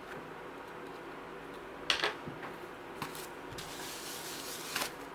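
Hands working on plastic parts: a sharp tap about two seconds in, a lighter one about a second later, then about a second of rubbing or scraping that ends in a short tap near the end.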